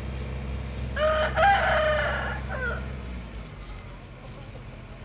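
A rooster crowing once, a drawn-out call of about two seconds starting about a second in, over a low steady engine hum that stops about three seconds in.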